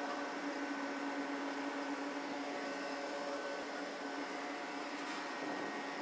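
Steady machinery hum of a running Carrier 30GT chiller, heard at its control panel, with several faint steady tones over a hiss.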